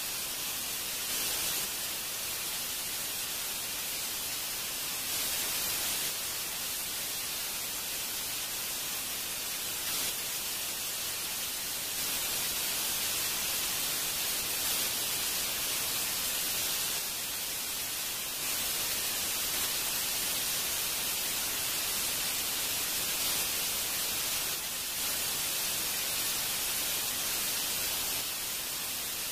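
Steady, even static-like hiss, heaviest in the high range, with small abrupt steps in loudness every few seconds.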